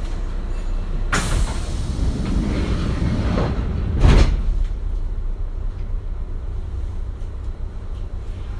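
Kintetsu 1420-series train's passenger sliding doors closing: a sudden sharp noise about a second in and a louder thump about four seconds in, over the steady low hum of the stopped train.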